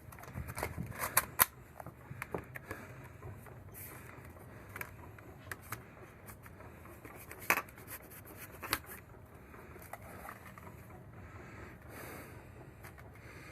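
Handling noise as a doorbell wire is fished through a hole in the wall: light scrapes and small clicks, busiest in the first second and a half, with two sharper clicks near the middle.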